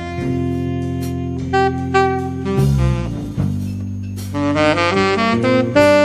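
Live jazz: a saxophone plays the melody over electric bass and drum kit, with a few cymbal and drum hits. Long held notes in the first half give way to a quicker run of short notes near the end.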